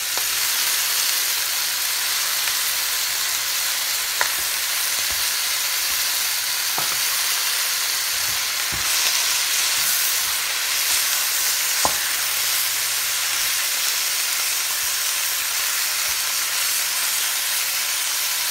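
Chicken pieces and sliced onions sizzling steadily in hot oil in a frying pan as they brown, stirred with a wooden spatula that knocks sharply against the pan a few times.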